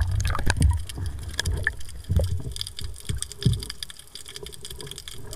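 Water gurgling and sloshing heard from just under the surface, with a low rumble and scattered clicks and knocks, quieter toward the end.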